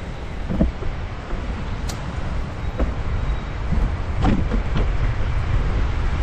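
Steady low rumble of wind buffeting the microphone while moving along a paved path, with a few short squeaks and knocks, the loudest about four seconds in.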